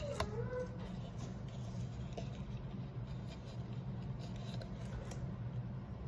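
Faint rustling and light clicks of a clear plastic tub of cotton candy being handled and a tuft pulled out, over a steady low hum. A short hummed "mm" from a person comes just after a click at the start.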